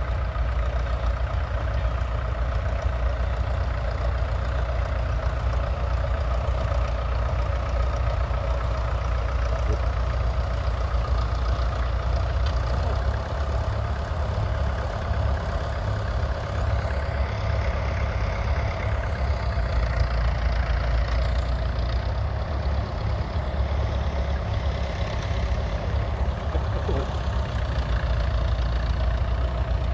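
International Harvester B275's 2.3-litre four-cylinder diesel engine running steadily at a low, even pace.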